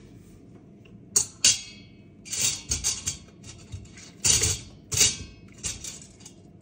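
Metal kitchen tongs clinking and clattering against the stainless-steel inner pot of an Instant Pot while boiled chicken leg quarters are lifted out. There are two sharp clinks with a brief ring about a second in, then a run of irregular knocks and clatters.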